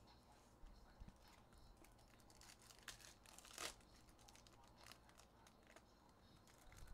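Faint crinkling and tearing of a foil trading-card pack wrapper being ripped open by hand, with a louder rip about three and a half seconds in.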